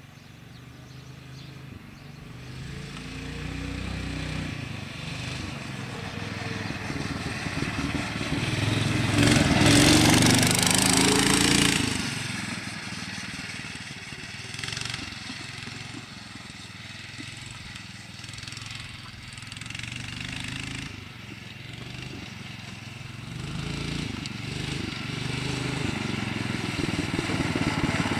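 12-horsepower 414cc Power Horse four-stroke engine of a three-wheeled Tricart running under way as it drives past. It grows louder, is loudest about ten seconds in, fades, then grows louder again near the end as it comes back.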